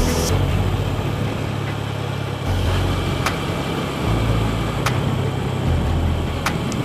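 Motorbike riding along a road: a steady engine hum with wind and road noise.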